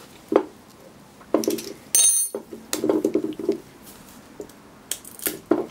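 Steel hand tools clinking and rattling on a steel workbench plate and against an aluminium car A/C compressor housing: scattered sharp clicks, one clink that rings briefly about two seconds in, and a longer metallic rattle just after.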